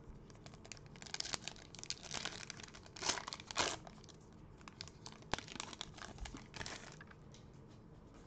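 Foil trading-card pack crinkling and tearing as gloved hands rip it open and pull out the cards, in irregular rustles that are loudest about three seconds in.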